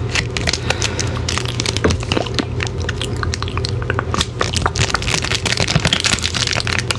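Plastic Kit Kat Witch's Brew candy wrapper crinkling and crackling as it is handled close to the microphone, the crackles thickest about four to six seconds in.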